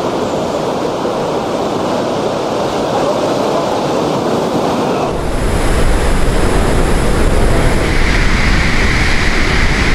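Hurricane eyewall wind and driving rain make a loud, steady rushing noise. About five seconds in, a deeper rumble of wind buffeting the microphone joins in.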